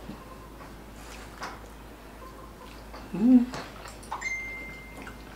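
Close-miked eating sounds: soft chewing of palabok noodles and small clicks of chopsticks and spoon. About three seconds in comes a short, loud vocal sound with a rising pitch, and near the end a thin steady high tone lasts about a second.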